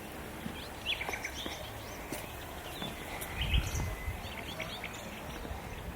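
Small birds chirping in short, scattered high calls over a steady low background hum, with a brief low rumble about three and a half seconds in.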